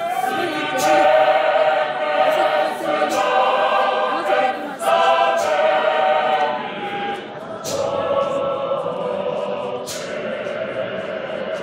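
Men's choir singing together in harmony, unaccompanied, with a few sharp knocks scattered through.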